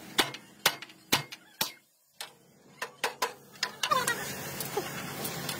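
Wrench clicking and clinking against nuts and bolts on a steel truck chassis frame rail, in sharp irregular metallic ticks about two a second. From about four seconds in, a steady outdoor background noise comes up under the ticks.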